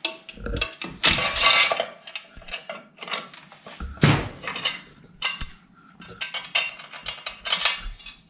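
Metal clinks, knocks and scrapes of hand tools and bolts while the bolted engine side cover over the flywheel is taken off a Tao Tao 110cc pit bike engine. The loudest knocks come about one second and about four seconds in, with a run of quick clicks near the end.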